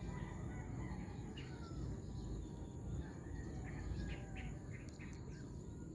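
Small birds chirping in scattered short calls, with a brief falling whistle, over a steady low outdoor rumble.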